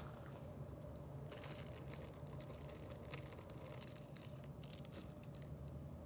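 Crinkling and small clicks of hands handling small objects, starting about a second in and dying away near the end, over a steady low hum.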